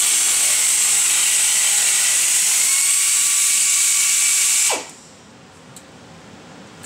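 Pneumatic air ratchet running flat out with a steady high hiss and whine, backing out a brake caliper guide pin. It cuts off near the end with a quick falling spin-down.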